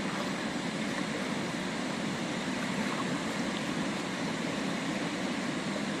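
Shallow river water flowing in a steady, continuous rush.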